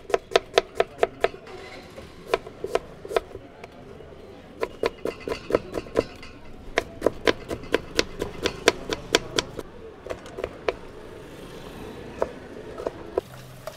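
A knife chopping on a wooden cutting board in quick runs of sharp taps, about four to five a second, with short pauses between runs. The taps thin out near the end.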